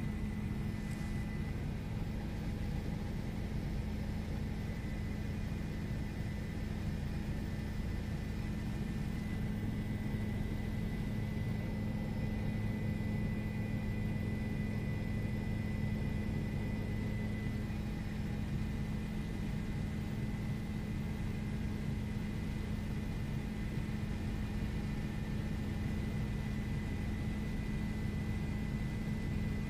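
Steady engine and rotor drone inside a helicopter cabin: a low, even hum with a thin, steady high whine above it.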